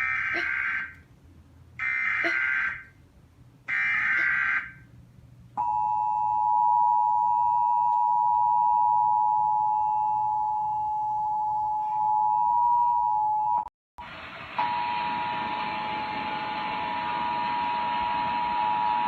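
Emergency Alert System tones: three short, screeching digital data bursts, then the steady two-tone EAS attention signal (853 and 960 Hz) held for about eight seconds. It cuts off briefly, and the same two-tone signal comes back with a hiss under it.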